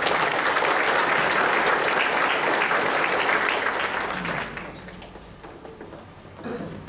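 Audience applauding, starting at once and dying away after about four to five seconds.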